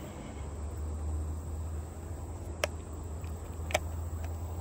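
A baitcasting fishing reel handled: two sharp clicks a little over a second apart, with a few fainter ticks, over a low steady rumble.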